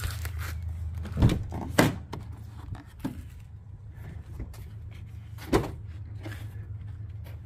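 Rear door of a Winnebago Revel camper van being unlatched and swung open: two sharp clunks about half a second apart, then another single knock a few seconds later, over a steady low hum.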